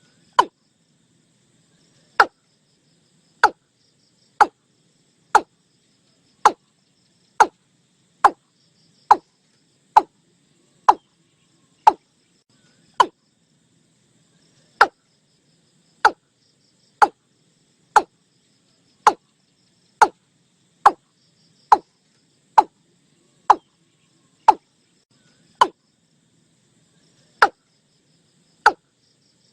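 Watercock calling: a series of short, sharp notes about one a second, each dropping quickly in pitch, with a couple of longer pauses between notes.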